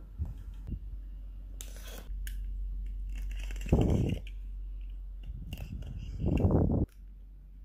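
A cardboard phone box is set down and handled, giving a few soft taps. Then its plastic shrink wrap is picked at and scraped at a corner, in two scratchy, crinkling spells about two and a half seconds apart.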